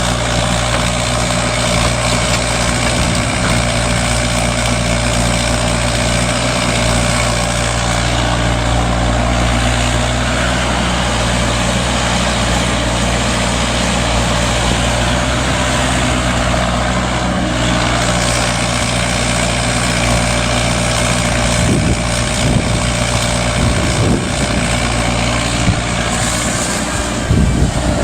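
Mini Kubota excavator's diesel engine running steadily. A few short knocks come near the end.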